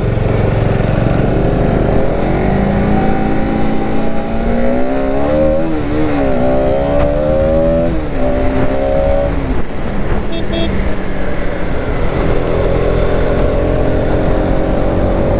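Motorcycle engine running under way, its note rising and falling several times through the middle as the throttle changes, then steadier near the end.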